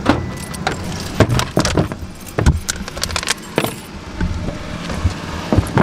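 Keys jangling and things being handled in a car trunk: a scatter of short clicks, knocks and rustles.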